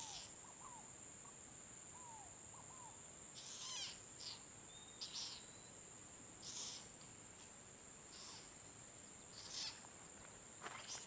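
Insects trilling steadily at a high pitch in the bush, with short chirping calls breaking in every second or two and a few soft falling whistles in the first three seconds.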